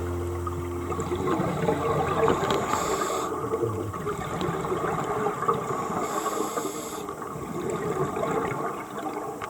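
Underwater sound from a diver's scuba regulator: a steady crackling bubbling, with two short hisses of inhalation about three seconds apart.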